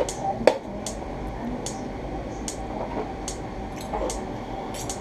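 Metal spoon and utensil working through freshly roasted chicken pieces in a metal roasting tray, separating pieces that have stuck together: soft squelching with scattered light clicks of metal against the tin, the sharpest clink about half a second in.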